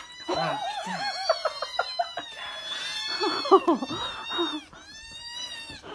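Several young kittens mewing, high-pitched overlapping mews that hardly let up while they beg for food and climb a person's leg.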